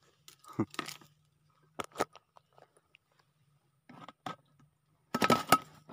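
Scattered short, crunchy rustles and clicks of hands handling fishing tackle among dry reeds, a few at a time, with a denser run near the end, over a faint steady low hum.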